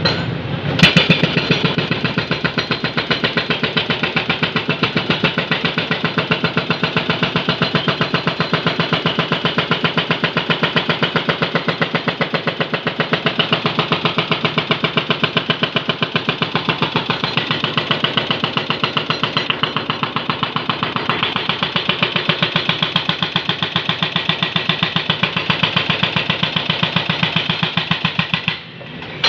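Hydraulic breaker on a Jonyang JY623E excavator hammering, rapid even blows, over the excavator's running engine; the hammering stops abruptly near the end.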